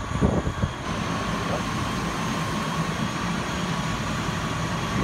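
A fire engine's engine running steadily, a low drone with a faint steady whine above it.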